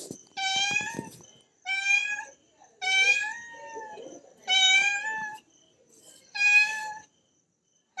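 Orange-and-white cat meowing five times in a row, each meow a drawn-out call of about half a second to a second, with short pauses between them.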